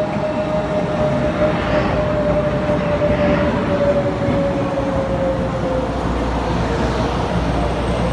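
Taiwan Railways EMU500 electric multiple unit pulling into a station and slowing down: a steady whine that falls slowly in pitch and fades out about six seconds in, over the running noise of the train. A low hum comes up near the end.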